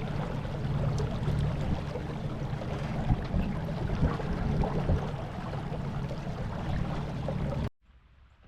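Small boat's motor running flat out in high gear, a steady low hum mixed with the rush of water and wind, which cuts off suddenly near the end.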